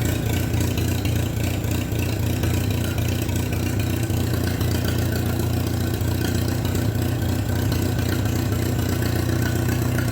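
Minneapolis-Moline BF tractor's gasoline engine idling steadily with no muffler on the exhaust, not yet warmed up.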